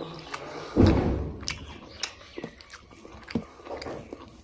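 Close-miked chewing of pork and rice, with short wet mouth clicks and smacks every half second or so. A low thump about a second in is the loudest sound.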